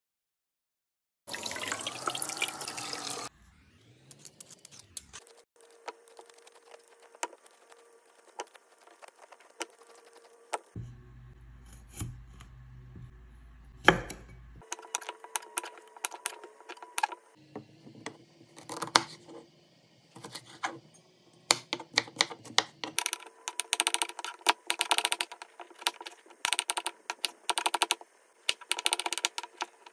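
A brief burst of running water, then a kitchen knife cutting cucumbers on a wooden chopping board: scattered single cuts trimming the ends, building to rapid, dense chopping in the last third.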